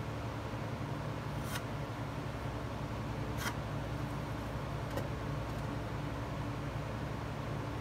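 A steady low background hum, broken by three brief scratchy strokes spread a second or two apart: a carpenter's pencil marking a wooden shelf board.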